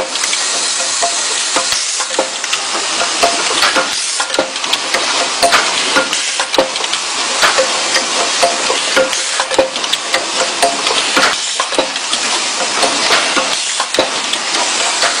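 Automated relay assembly machine running: a steady hiss full of fast, irregular small clicks and clatter.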